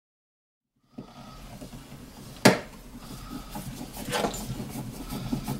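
Screwdriver work on an outlet cover plate being fitted over a wall receptacle: after about a second of silence, a sharp click about two and a half seconds in, a lighter click near four seconds, and faint scraping and handling between them.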